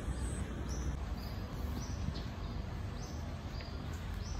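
Short high-pitched chirps from a small animal, repeating about every two-thirds of a second over a low steady outdoor rumble.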